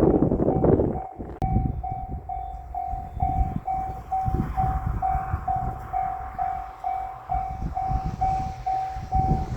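Japanese railway level-crossing warning bell ringing steadily, about two strokes a second, over an uneven low rumble. A louder rush of noise fills the first second, before the bell stands out clearly.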